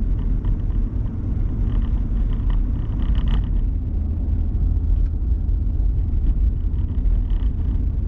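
Steady low rumble of engine and road noise inside the cabin of a moving four-wheel-drive vehicle.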